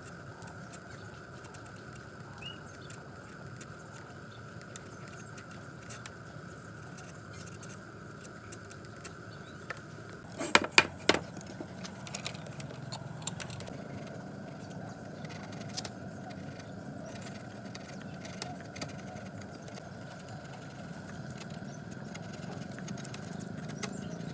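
A trigger bar clamp squeezed tight on a wooden workpiece, giving a quick run of sharp ratcheting clicks about ten seconds in. After that, a steel chisel pares the end grain of the hardwood with small scattered clicks and scrapes, over a steady background hum.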